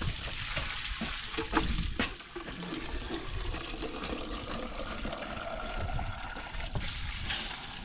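Water sloshing and splashing in a small pot as it is rinsed out and scrubbed with a spoon, spilling onto gravel, with a few sharp knocks of metal against the pot in the first two seconds.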